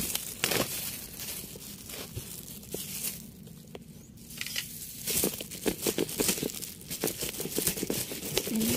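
Digging by hand through potting soil and fibrous roots around turmeric rhizomes: rustling, crackling and tearing of roots and dry leaves. It thins out about three seconds in and grows busier again from about five seconds.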